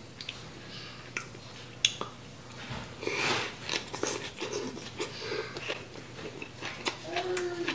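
Close-up mouth sounds of eating japchae glass noodles with kimchi. A few small clicks, then a slurp about three seconds in as the noodles are sucked in, then wet chewing.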